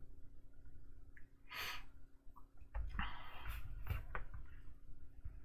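Faint breathing close to the microphone: a breath about one and a half seconds in and another about three seconds in, with a few soft knocks.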